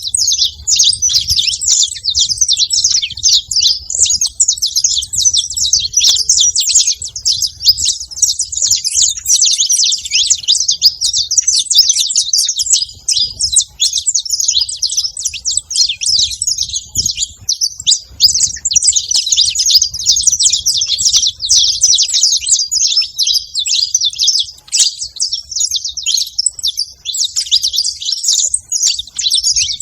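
A pair of saffron finches, male and female, chirping and singing together in a dense, unbroken stream of rapid high notes.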